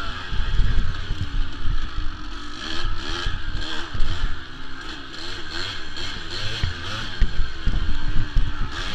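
Kawasaki KDX200's two-stroke single-cylinder engine being ridden hard, its pitch rising and falling again and again as the throttle is worked and shifted through the trail's turns.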